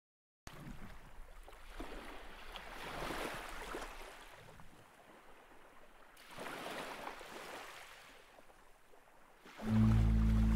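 Sea waves washing in, two slow swells of rushing noise. Near the end a loud, low sustained chord comes in and holds, the opening of the song's music.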